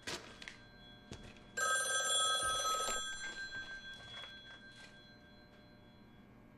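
Corded landline telephone ringing once, one ring about a second and a half long starting about a second and a half in, its tone fading away afterwards. A few faint knocks come just before it, near the start.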